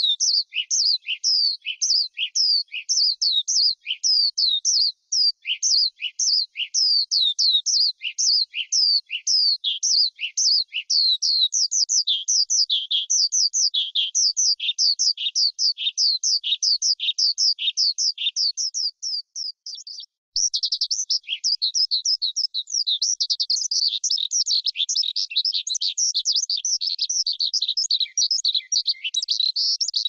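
Skylark song: a long, unbroken run of quick, high chirping notes, several a second. It breaks off briefly about twenty seconds in, then resumes as a denser, almost continuous twitter.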